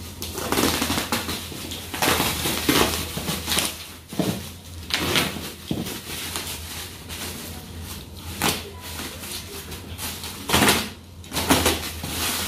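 Bubble wrap crinkling and rustling as it is sliced with a utility knife and pulled back, in irregular crackly bursts with a few sharp crackles.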